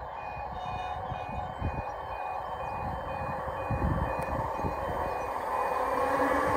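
Level crossing warning alarm beeping in a steady repeating two-tone pattern as a train approaches, its rumble growing steadily louder and gradually swamping the alarm.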